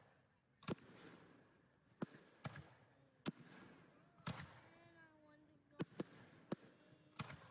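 Fireworks going off at a distance: about ten sharp, separate bangs at irregular intervals, some in quick pairs, with faint voices of onlookers between them.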